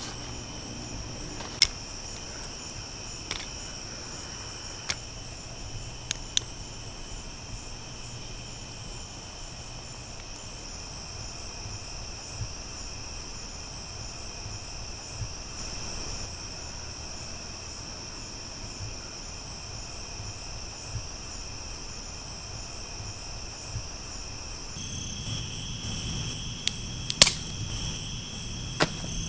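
Crickets chirping steadily in a continuous high-pitched chorus, with a few sharp clicks scattered through it and a low rumble joining near the end.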